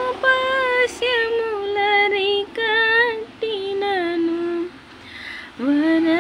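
A woman singing a slow melody unaccompanied, holding long wavering notes. She breaks off briefly about five seconds in, then starts a new phrase.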